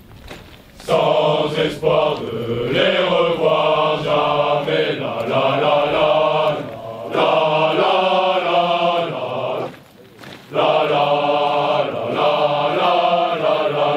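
A marching column of men singing a military marching song in unison, in long held phrases with a short break about ten seconds in.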